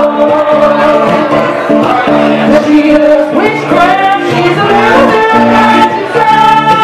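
A woman singing lead with long held, gliding notes over a strummed acoustic guitar, played live.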